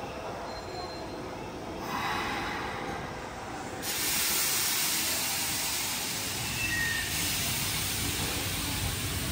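Electric commuter train at a station platform, a low rumble under it; about four seconds in a loud, steady hiss of compressed air starts suddenly and keeps going.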